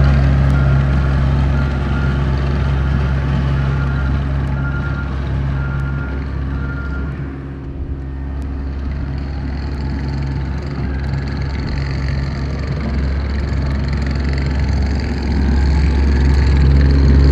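Skid-steer loader's diesel engine running, with its backup alarm beeping steadily for the first several seconds while it reverses. The alarm stops and the engine eases off about eight seconds in, then works back up.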